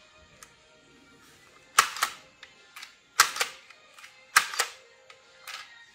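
Handheld price labelling gun clacking as its handle is squeezed and released, each stroke a sharp double click. Three loud strokes about a second apart, then a weaker one near the end.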